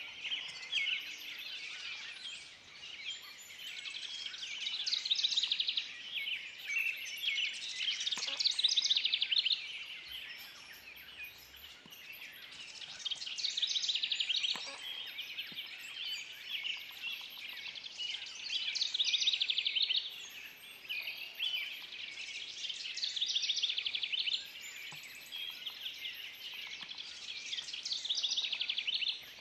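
Dawn chorus of many songbirds singing at once: overlapping rapid trills and chirps that swell and fade, with faint thin high notes above them.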